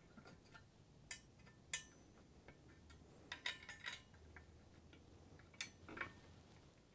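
A few faint, sharp metal clicks and taps, scattered with a small cluster midway: a hex key working a screw on an aluminium rail assembly, with hands handling the metal parts.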